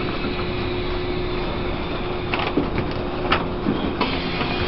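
Interior running noise of a Taiwan Railways E1000 push-pull Tze-Chiang express: a steady rumble and rush from the train with a constant hum, and a few short clicks past the middle.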